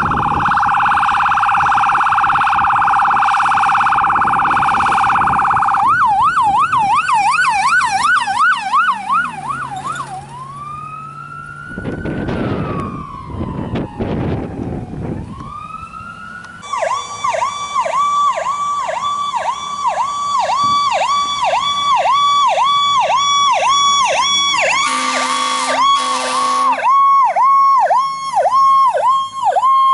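Fire truck electronic siren switching through its tones. It opens with a very fast warble, changes to a yelp at about six seconds, then to a slow rising-and-falling wail near the middle, and returns to a yelp. An air horn blast sounds for about two seconds near the end.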